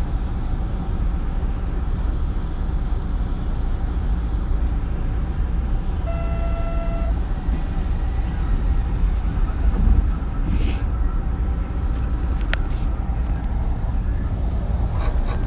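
Hanshin 9000-series electric train running between stations, heard from inside the car: a steady rumble of wheels on rail and traction equipment. A short tone of about a second comes about six seconds in, and a brief hiss comes around ten seconds.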